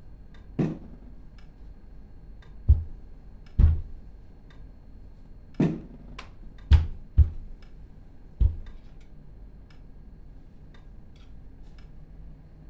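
Irregular dull thuds, about eight of them, as a small rubber ball is thrown and bounces off the floor and walls. A clock ticks faintly underneath.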